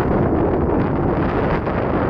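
Wind blowing across the microphone: a steady, loud low rumble and rush.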